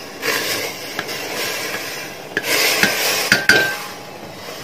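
Rice flour being stirred into boiling salted water in a pot to scald it into dough: scraping and rasping of the spoon through the thickening flour, with a few sharp clinks against the pot in the second half, one ringing briefly.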